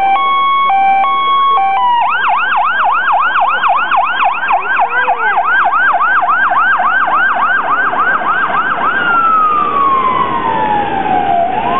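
An emergency vehicle's electronic siren cycles through its tones. It starts with a two-tone hi-lo for about two seconds, switches to a fast yelp of about four sweeps a second, and at about nine seconds in drops into a slow falling wail that turns and rises again near the end.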